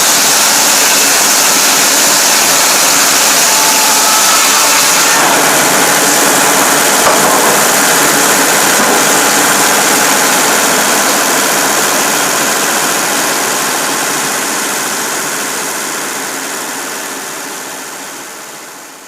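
Cummins diesel power unit of a Frick 00 circular sawmill running steadily, with one short click about seven seconds in, fading away over the last several seconds.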